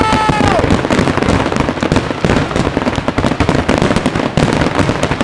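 Large fireworks display: a dense, unbroken barrage of many shells bursting together, sharp bangs and crackles overlapping with no gap.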